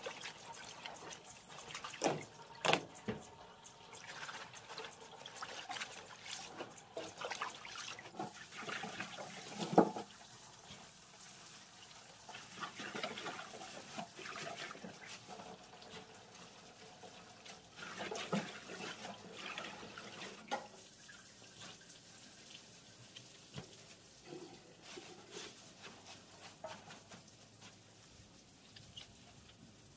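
Water sloshing and splashing in a stainless-steel sink as rapeseed greens are washed by hand, with irregular clicks and one sharp knock about a third of the way in. The splashing thins out and grows quieter in the last third.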